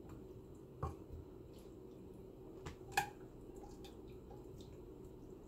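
A slotted metal spoon and a stainless steel pot knocking lightly against a clay serving dish while cooked chickpeas in sauce are spooned and tipped in, with a few small ticks and two sharper clinks, the louder about three seconds in.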